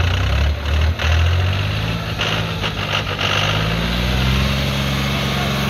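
Farm tractor's diesel engine running under load while towing a stuck car through deep snow. It revs up between about two and four seconds in, then holds a steady higher pitch.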